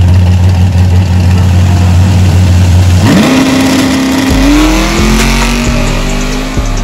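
Drag-racing cars' engines held at a loud, steady drone on the start line, then launching about three seconds in. The engine note rises sharply and climbs in steps through the upshifts as the cars pull away.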